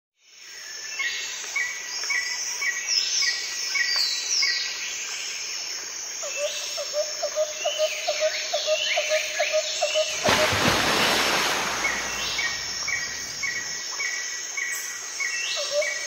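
Several birds calling: a repeated series of short chirps, falling whistled notes, and a quick run of low notes at about three a second. Starting about ten seconds in, a loud rushing noise covers the calls for about three and a half seconds.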